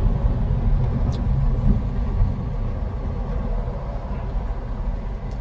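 Steady low rumble of a car's engine and tyres heard from inside the cabin as the car moves along.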